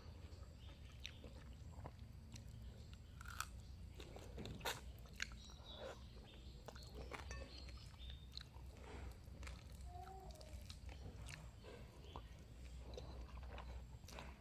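Close-up chewing and crunching of food, with scattered sharp crunchy clicks, the loudest a few seconds in.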